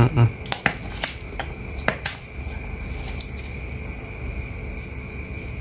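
Metal ladle clinking and scraping against a non-stick pan of simmering noodle broth while it is stirred: several light clicks in the first two seconds, then a steady low hiss.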